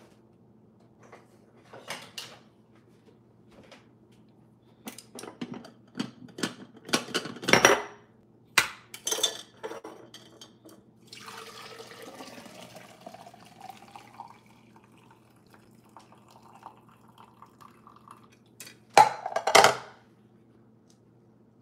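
Kitchen handling sounds: scattered knocks and clinks of dishes and utensils, loudest in two clusters about seven seconds in and near the end, with a few seconds of liquid pouring in the middle.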